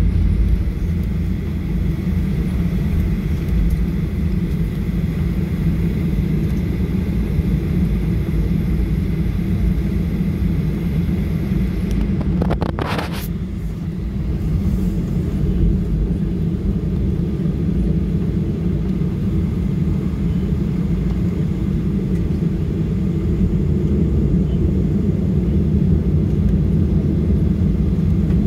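Cabin noise inside a Boeing 737-800 taxiing after landing: a steady low rumble from its CFM56-7B engines at idle and the rolling aircraft, with a faint high whine in the first half. A brief sharp noise sounds about halfway through.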